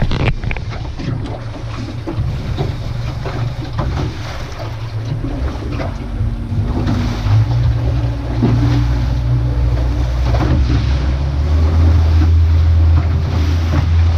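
A fishing boat's engine drones steadily under way, with wind buffeting the microphone and sea water rushing past the hull. The engine drone grows louder in the last few seconds.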